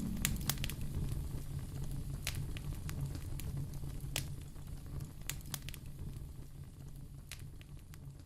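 Wood fire crackling in a fireplace: a low steady rumble with scattered sharp pops, gradually fading out.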